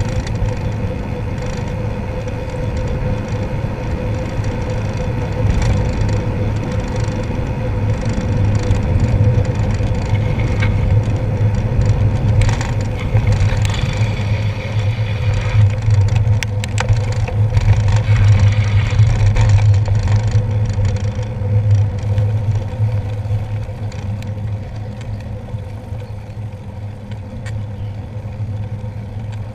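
Riding noise of a bicycle heard through a handlebar-mounted camera: a steady low rumble of tyres on wet tarmac mixed with wind on the microphone. Small rattles and clicks come in scattered between about 12 and 20 seconds in, and the noise eases near the end.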